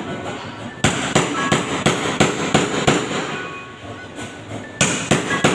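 A hammer striking the rim of a round cutout in a ceiling overhead: a quick run of sharp knocks, about three a second, starting about a second in. The knocks pause for a moment, then start again near the end.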